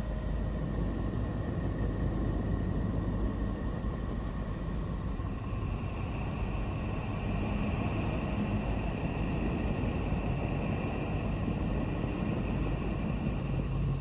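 Sonified Voyager 2 recording of Neptune's radio and plasma-wave emissions, played as sound: a steady, rumbling, train-like drone with faint high tones, and a higher whistling band that comes in about six seconds in.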